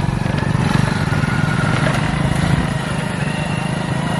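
Hero Splendor motorcycle's single-cylinder four-stroke engine running steadily while the bike rolls along pulling a homemade cargo trolley.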